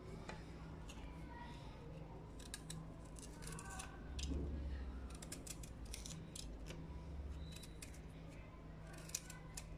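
Kitchen knife shaving the skin off a raw taro corm: scattered short, faint scraping strokes and clicks of the blade on the root. A steady low hum runs underneath, with a brief low rumble about four seconds in.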